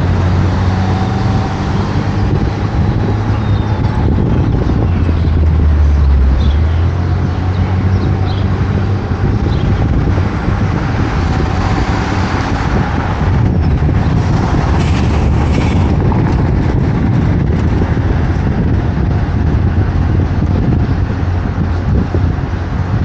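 City traffic heard from a car driving along an avenue: a steady low rumble of engine and road noise.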